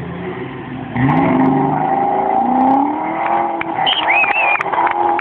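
Off-road 4x4 trial car's engine running low, then revving hard about a second in, rising and falling in pitch as it works up a steep climb. A brief high squeal comes near the four-second mark.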